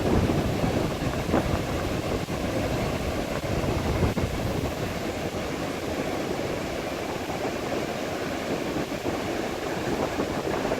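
Ocean surf washing on a beach, with wind rumbling on the microphone.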